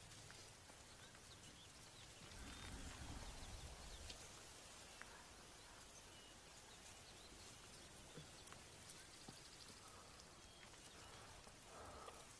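Near silence: faint outdoor ambience, with a few soft clicks and a low rumble about two seconds in.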